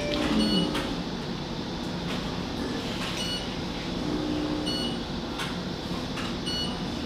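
Steady operating-room hum with about four short electronic beeps from theatre equipment, spaced a second or more apart.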